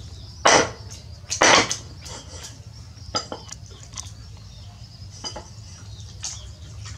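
Meat cleaver chopping pork on a thick wooden chopping block: two heavy chops about half a second and a second and a half in, then lighter scattered taps and clicks.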